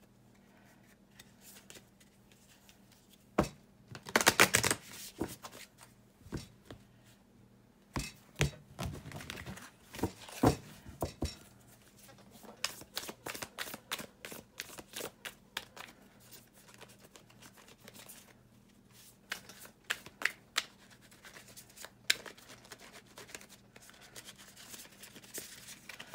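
A deck of large, stiff tarot cards being shuffled by hand: irregular runs of card snaps and clicks, the densest and loudest burst about four seconds in. The cards are new and not yet broken in.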